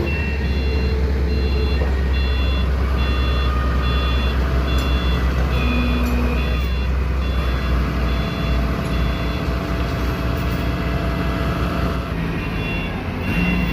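An 18-inch rubber hot mill, a two-roll mixing mill, running with a loud steady low hum. An electronic beeper sounds over it about two to three times a second.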